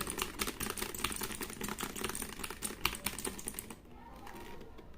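Mars Gaming MKCLOUD mechanical gaming keyboard being typed on fast, a dense run of key clicks that thins out into fainter, sparser keystrokes near the end.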